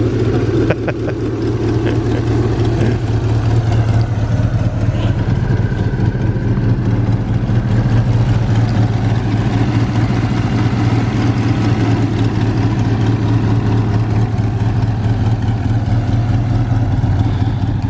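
1968 Toyota Corona 1600S four-cylinder engine running steadily, with a constant low hum and no revving.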